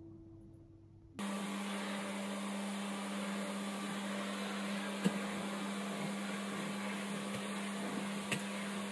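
Canister vacuum cleaner running: a steady rushing hiss over a low hum, starting abruptly about a second in. Two brief clicks sound partway through.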